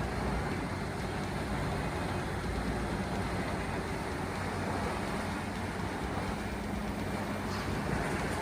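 Heavy diesel engine of a large wood grinding machine running steadily under load, a low hum over an even rumble of material being processed.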